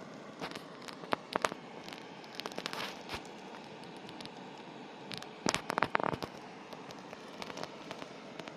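Wood campfire crackling, with irregular sharp pops and a quick cluster of louder pops about five and a half seconds in, over a steady hiss.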